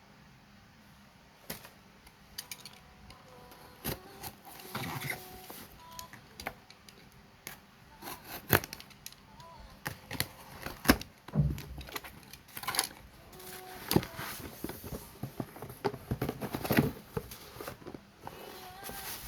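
Handling and opening a package: irregular clicks and knocks with crinkly rustling of packaging, starting about a second and a half in and going on in uneven bursts.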